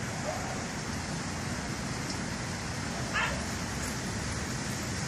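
A dog gives one short bark about three seconds in, over a steady background hiss.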